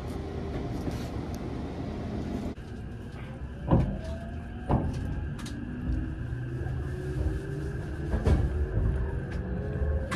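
Rumble of a moving train, then railway station platform noise: a low rumble with three sharp clunks and a faint whine that rises slowly in pitch.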